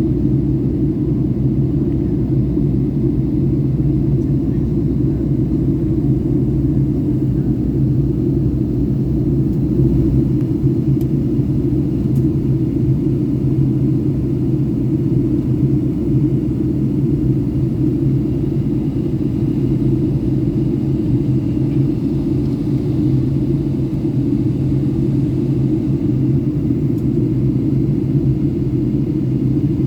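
Steady low rumble inside the cabin of a Boeing 757-200 with Rolls-Royce RB211 engines, on its final descent: engine and airflow noise with no change in pitch or level.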